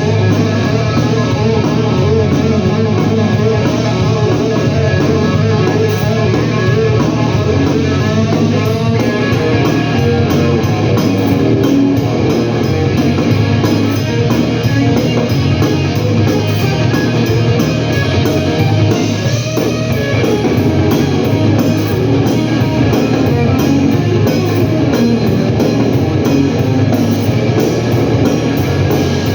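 Live blues-rock band playing an instrumental passage: loud guitar at the front over bass and drums, with no singing.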